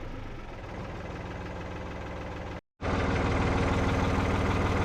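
Heavy equipment engine running steadily at a constant speed. The sound breaks off for a moment about two and a half seconds in, then the engine runs on louder.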